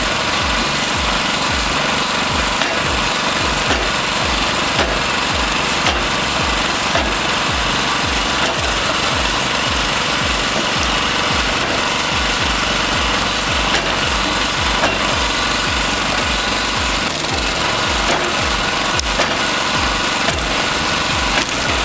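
Small combustion engine running steadily on a homemade wedge-blade log splitter, with a few sharp cracks of wood splitting.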